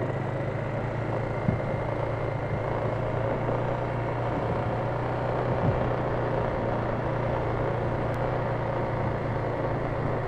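Polaris Sportsman 570 ATV's single-cylinder engine running at a steady, even drone under way on a trail. There are two small knocks, about a second and a half in and again about halfway through.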